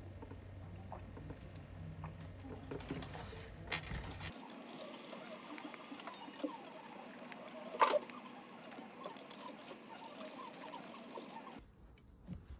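Scattered light clicks and taps, like small objects being handled, with one sharper click about eight seconds in. A low hum underneath stops abruptly about four seconds in.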